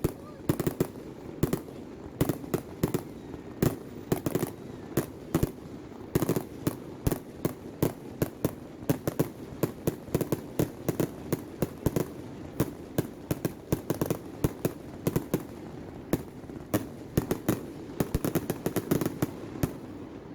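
Aerial fireworks show: a dense, irregular run of sharp bangs and crackles, several a second, over a steady low rumble of booming shells.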